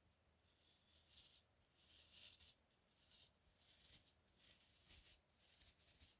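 Coconut-fibre hand brush sweeping a surface in a run of faint, short swishes, about one stroke a second.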